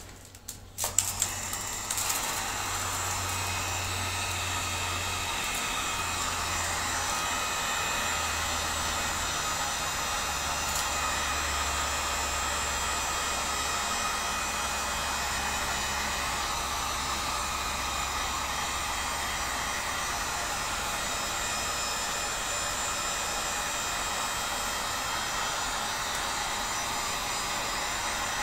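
A few handling clicks, then an electric heat gun starts about two seconds in and runs steadily, blowing hot air onto a PVC bow limb to soften it for bending.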